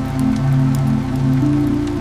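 Heavy rain falling steadily, with scattered drops ticking, under calm ambient music of soft sustained low notes.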